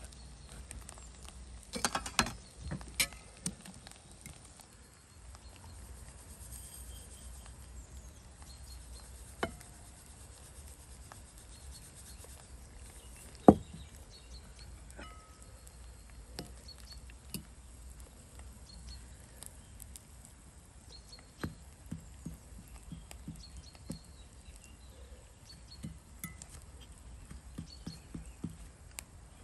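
Scattered light knocks and clicks, with a brief cluster early and one much louder sharp knock about halfway through.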